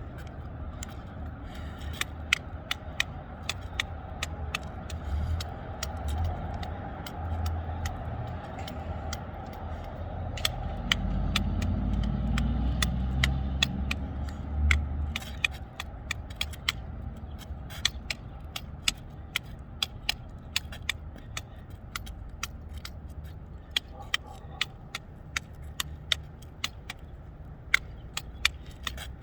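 Devil sticks being juggled: sharp, irregular clicks as the handsticks tap the centre stick, one to three a second. A low rumble swells in the middle and fades again.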